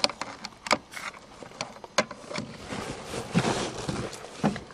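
Keys rattling and clicking as a key is fumbled into the ignition lock on a 1984 Toyota Cressida's steering column: a string of irregular sharp clicks and knocks.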